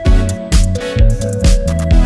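Background music with a steady electronic beat, about two strong beats a second over held synth notes.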